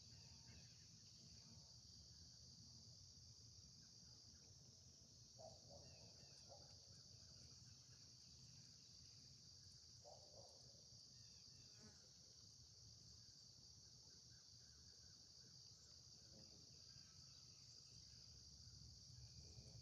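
Faint, steady high-pitched chirring of insects such as crickets, with a low steady rumble beneath and a few faint short sounds.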